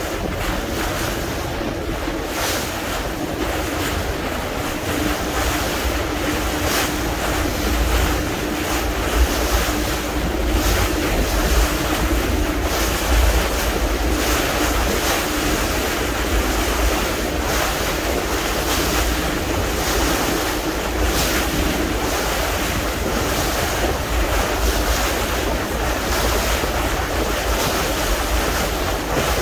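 Wind buffeting the microphone and sea water rushing and slapping along the hull of a moving small fishing boat, with a faint steady hum from the boat's engine underneath.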